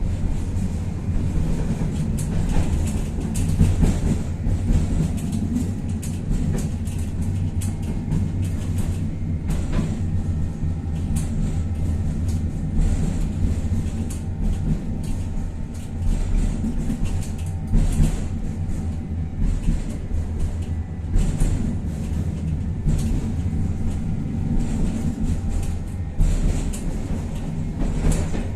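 Tatra-Yug K1M tram running, heard from on board: a steady low rumble and hum with faint steady tones, and scattered clicks and rattles from the wheels and car body.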